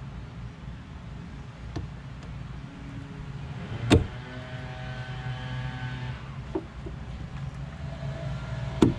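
Sharp clicks of a Honda CRX rear-hatch gas strut's socket end on its ball-stud mount as the strut is swapped. There are two loud clicks about five seconds apart, the first about four seconds in and the second near the end, with a few fainter ones between, over a steady low hum.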